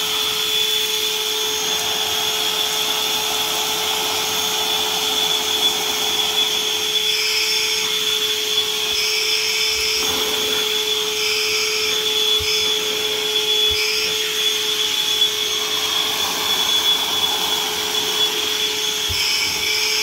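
Bosch 18 V cordless wet/dry vacuum running at full speed with a steady high whine. Its upholstery nozzle is worked over carpet, sucking up scattered flakes, and the rushing air changes in short stretches through the middle and near the end.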